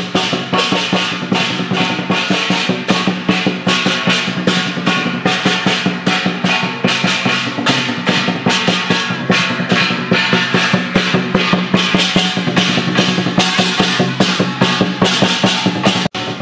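Chinese dragon-dance percussion: a big drum beaten in a fast, even rhythm with clashing brass hand cymbals. There is a brief break in the sound near the end.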